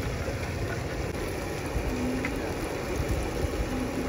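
Diced tofu and chili frying in oil on a large flat street-food pan: a steady sizzle over a low rumble.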